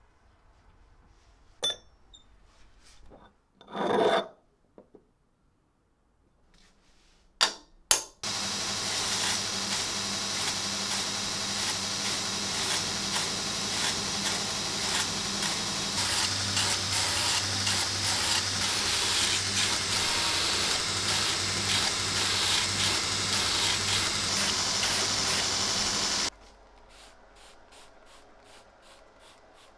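Belt grinder grinding the steel of an old file: a loud steady grinding noise with a low hum beneath it, starting about eight seconds in and cutting off abruptly near the end. Before it come a few scattered clicks and one short loud noise about four seconds in.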